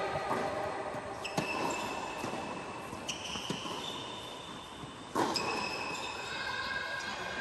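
Tennis ball impacts, racket hits and ball bounces, about every two seconds, each with a ringing echo that hangs on in the large domed indoor tennis hall.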